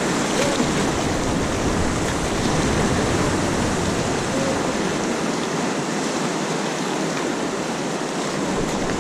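River water rushing steadily around a raft.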